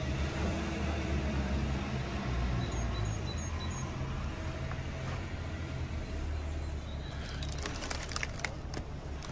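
A motor vehicle's engine running with a steady low rumble. A quick run of four short high beeps comes about three seconds in, and a clatter of sharp clicks near the end.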